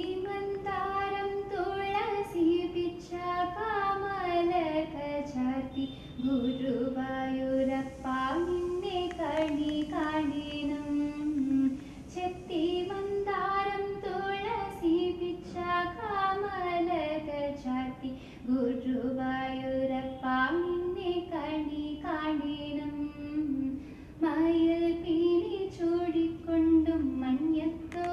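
A woman singing a devotional song to Guruvayurappan solo, one melodic line with long held notes that slide and waver between pitches.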